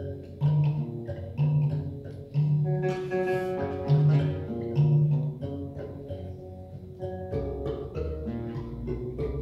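Theorbo and marimbula playing early Latin American baroque music together. Strong low plucked notes about once a second for the first five seconds under higher plucked notes, with the low register growing busier after about seven seconds.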